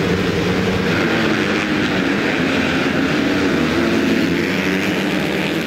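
A pack of motocross bikes racing, many engines revving together in a loud, steady drone.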